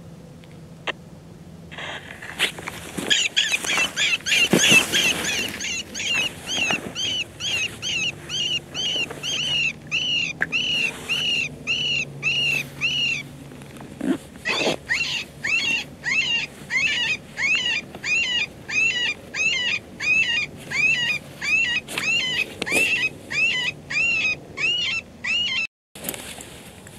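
Electronic predator call playing a prey-in-distress sound: high, arched, wavering cries repeated about two a second, with a short pause about halfway through.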